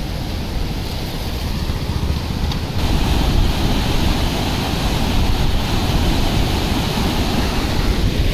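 River in flood after heavy rain, its muddy water rushing fast in a steady noise that grows louder about three seconds in.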